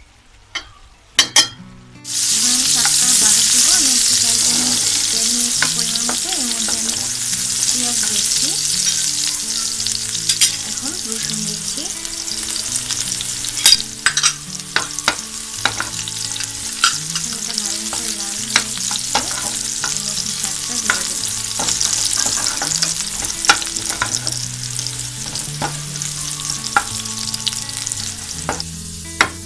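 Sliced onions and garlic dropped into hot oil in a frying pan about two seconds in, then sizzling steadily as they fry for the tempering (baghar). The sizzle eases a little over time, and a spoon clinks against the pan now and then.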